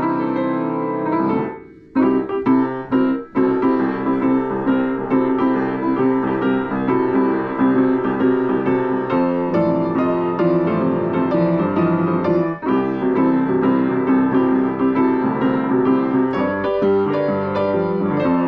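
Hellas upright piano being played by hand: an opening chord, a short break about a second and a half in, then continuous playing of chords and melody.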